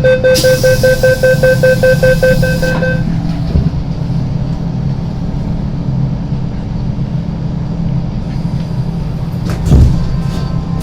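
MTR M-Train door-closing warning: a rapid beeping tone, about seven beeps a second, over a hiss for roughly three seconds. Then the train runs with a steady low hum, with a short thump near the end.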